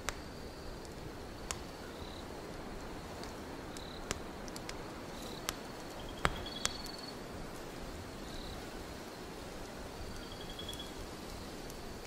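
Wood fire crackling, with scattered sharp pops (the loudest a little past halfway) over a steady hiss. Crickets chirp in short high trills every second or two.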